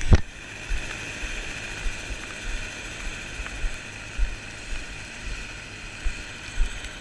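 Footsteps crunching on glacier snow, soft thumps roughly every half-second to second, over a steady rushing hiss.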